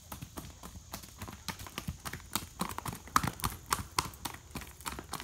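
Horse's hooves striking a gravel track at a brisk gait: a rapid, even run of sharp hoofbeats that grows louder as the horse passes close by.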